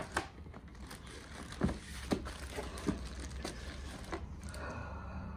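Hard plastic graded-comic slabs clacking against each other and rubbing on cardboard as they are lifted out of a divided shipping box: several short sharp knocks and some light scraping over a low steady hum.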